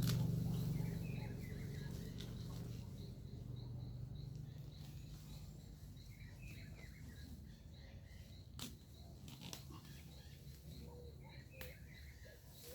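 Small birds chirping in short bursts at intervals, over a low rumble that fades away during the first few seconds. A few sharp clicks stand out, the clearest about two-thirds of the way in.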